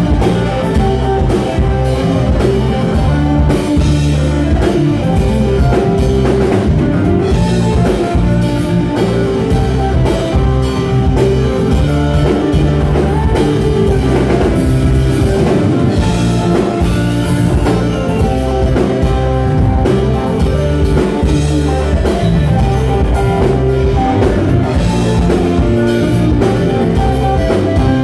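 Live rock band playing loudly and steadily: electric guitar, bass guitar and drum kit.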